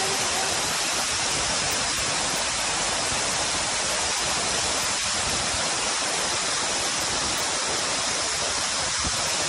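Man-made waterfall cascading down a rock face into a pool: a steady, even rush of falling water.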